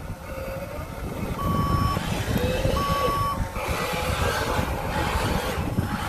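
Electronic reversing beeper of an RC dump truck sounding twice, each beep a steady tone of about half a second, with a fainter wavering motor whine underneath and a steady low rumble.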